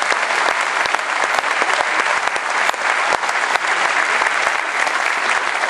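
Large audience applauding loudly, a dense steady clatter of many hands clapping in a big hall.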